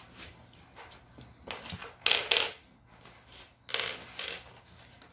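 Small steel bolts and nuts clinking together and clattering as they are set down on a wooden floor. The loudest clinks come as a quick pair about two seconds in, with another near four seconds.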